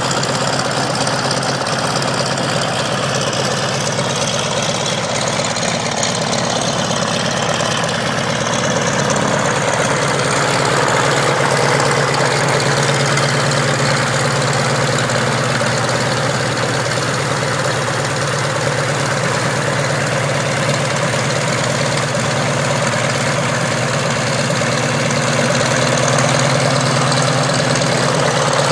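A 1952 Cessna 195's Jacobs seven-cylinder radial engine idling steadily, with its propeller turning.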